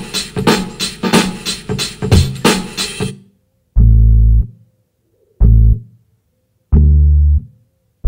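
A drum beat, repeating about twice a second, stops about three seconds in. An electric bass then plays three separate low notes, each held for about half a second and cut off sharply, with silence between them.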